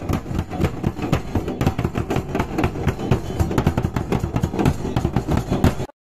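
Large barrel drums (dhol) beaten in a fast, dense rhythm, cutting off abruptly near the end.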